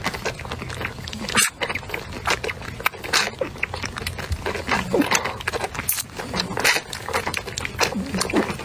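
Newborn puppies squeaking and whimpering in short cries, among many quick clicks and rustles.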